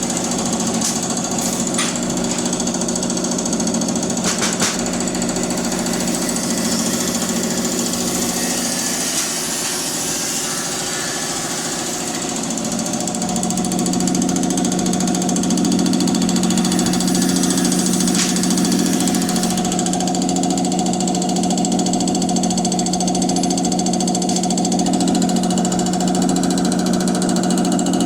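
Bosch EPS 100 common rail test bench running an injector through calibration: a steady mechanical hum with a few sharp clicks early on, growing louder and holding about 13 seconds in.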